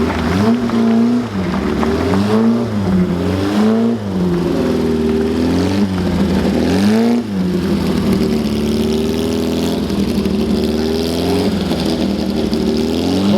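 Classic racing car's engine idling with about five quick throttle blips in the first seven seconds, the pitch rising and falling each time, then settling to a steady idle.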